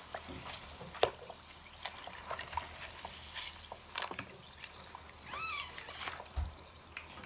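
Hands swishing and splashing in a bowl of water, with small drips and wet clicks as a toy is worked loose. A short high squeak about five and a half seconds in.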